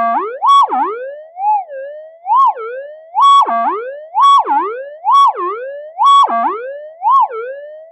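Metal detector's audio target response: a gliding tone that swoops up and drops back about once a second as a target is passed over the search coil, most swoops climbing to the same top pitch and holding there, the last ones weaker.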